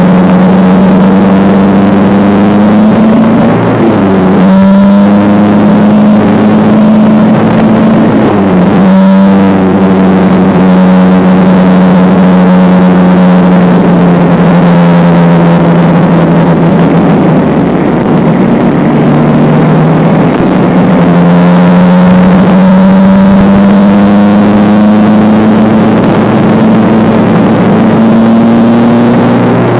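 Motorcycle engine running under way, its pitch climbing and sagging with the throttle. There are sharp changes in pitch about four and nine seconds in and again about twenty seconds in, typical of gear changes.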